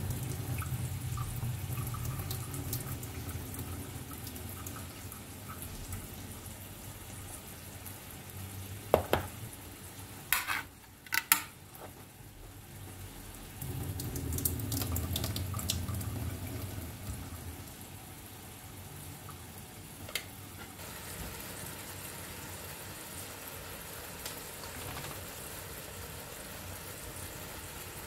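Liquid from opened food cans being poured into a kitchen sink, splashing in two spells, with a few sharp metallic clinks from the cans in between. A steady sizzle of food frying in oil runs underneath and is clearest near the end.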